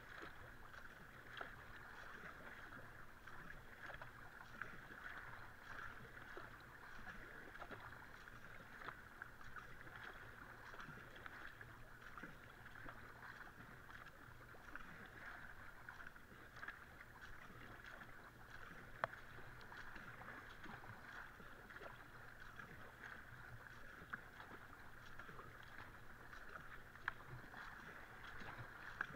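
Kayak paddle blades dipping and pulling through calm river water, faint stroke after stroke of small splashes and drips over a steady soft hiss. Two sharper clicks stand out, one about halfway through and one near the end.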